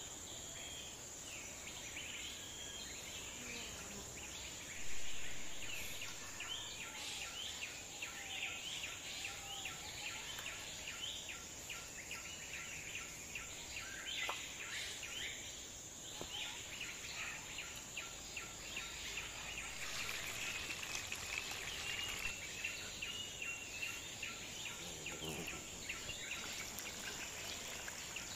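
Outdoor ambience: a steady, high-pitched insect drone with birds chirping and calling over it, and a run of faint, evenly spaced ticks. A brief louder noise about five seconds in.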